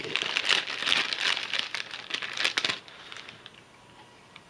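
Crinkly packaging rustling and crackling as it is handled and opened for almost three seconds, then it stops.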